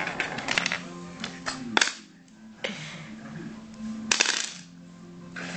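Backgammon checkers and dice clicking and clacking on the board in irregular strokes, with the loudest clacks about two seconds and about four seconds in.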